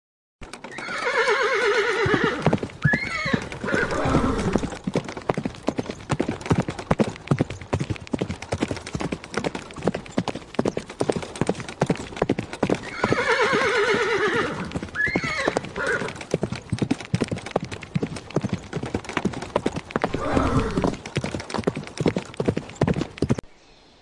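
Horse whinnying over a steady clip-clop of hooves. A long whinny comes about a second in and again about thirteen seconds in, with a shorter neigh about twenty seconds in, and the sound cuts off suddenly near the end.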